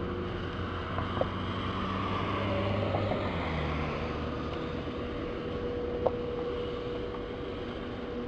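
Steady storm noise of rain and wind heard through a window glass, with a low steady hum underneath and two small clicks, about a second in and about six seconds in.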